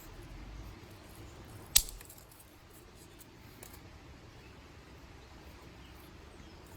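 A dry stick snapping once with a sharp crack, a little under two seconds in, followed by a few faint small crackles.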